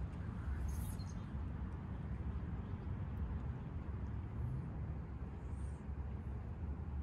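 Steady, uneven low rumble of wind buffeting the microphone, with faint outdoor ambience.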